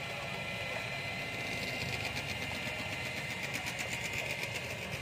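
Steady whirring of a small motor, with a fast even ticking joining in about halfway through.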